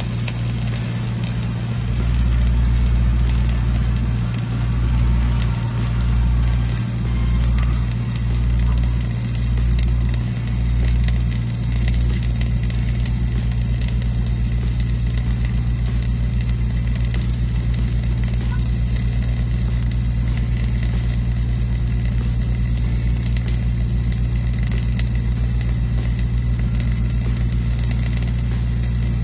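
Flux-cored arc welding crackling steadily over the low drone of an engine-driven welding machine. The drone swells and fades about once a second for roughly the first dozen seconds, then holds even.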